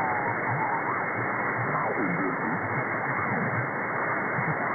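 Audio from a software-defined radio receiver (SDRplay RSP1A on an active loop antenna) tuned in the 160-metre amateur band: steady hiss of band noise. Faint, wavering tones of a mistuned signal come through it, and about two seconds in one tone slides down in pitch as the tuning is moved.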